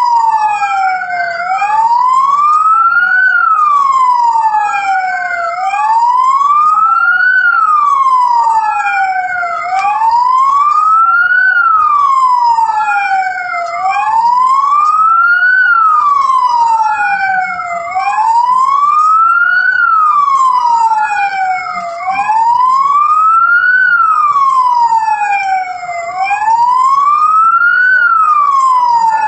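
Police car siren wailing: two wail tones rising and falling out of step with each other, each going up and down about every four seconds.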